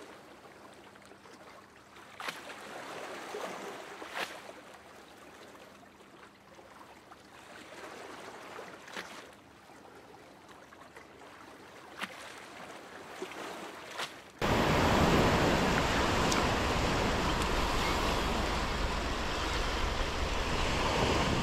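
Faint hiss with a few soft clicks, then, about 14 seconds in, surf washing onto a sandy beach cuts in suddenly and runs on loud and steady.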